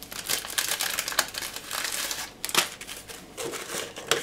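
Tea bags and their paper packets crinkling and rustling as they are handled and dropped into a teapot, with irregular small clicks and ticks.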